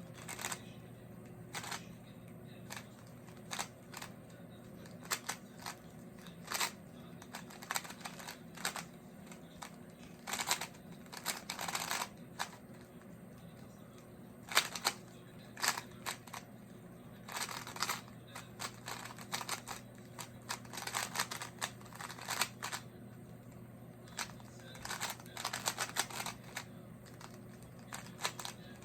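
Rubik's cube being turned quickly by hand during a timed speedsolve: quick runs of plastic clicks and rattles as the layers snap round, broken by short pauses between turn sequences.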